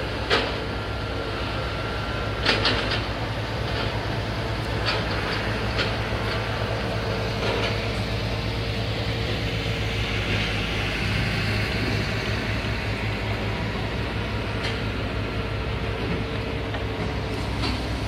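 Heavy road-paving machinery, a road roller and an asphalt paver, running steadily with a deep engine drone. A few sharp metallic clanks sound through it.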